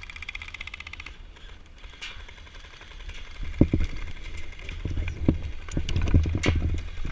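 A burst of rapid, evenly spaced full-auto airsoft gunfire lasting about a second, then a pause. From about three and a half seconds in come irregular loud knocks and bumps, close to the microphone.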